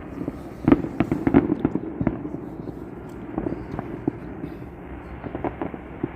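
Fireworks going off: a quick run of bangs and crackles about a second in, then scattered single pops and cracks.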